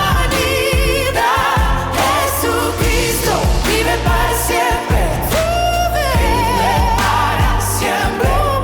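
Modern Spanish Christian worship song: a sung voice with wavering vibrato over a full band with heavy bass.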